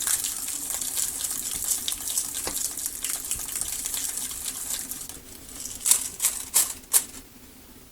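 Thin decorative transfer foil crinkling and rustling as it is pressed and rubbed down onto a sewing machine's glued surface. The rustle is dense for about five seconds, then comes as a few separate sharp crinkles near the end.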